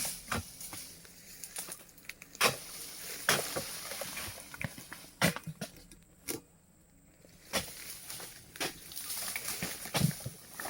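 Irregular sharp knocks and cracks, roughly one a second, with rustling between them, from oil palm harvesting work: blade strikes and palm fronds being handled.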